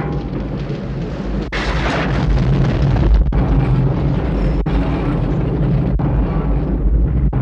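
Animated-film sound effects: a loud, continuous rumble with a hissing rush about a second and a half in.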